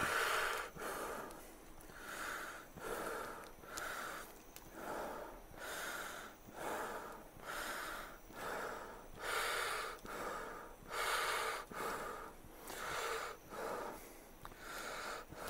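A person breathing deeply and rapidly through an N95 respirator inside a plastic-bag hood, with a puff of breath in or out about every three quarters of a second.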